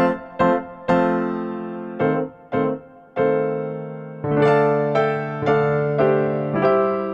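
Background piano music: chords struck one after another and left to fade.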